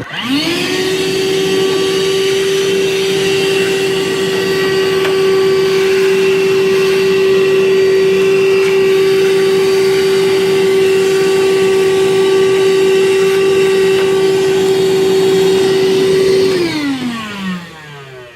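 Battery-powered DeWalt shop vac switched on, spinning up at once to a loud steady whine, then switched off about sixteen seconds in and winding down in falling pitch.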